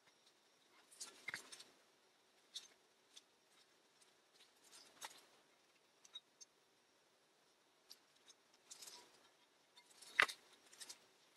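Quiet, scattered clicks and light scrapes of gloved hands handling a Triumph Herald gear change linkage housing while fitting new seals into it, with one sharper click about ten seconds in.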